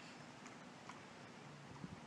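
Near silence: faint background hum with a few faint ticks.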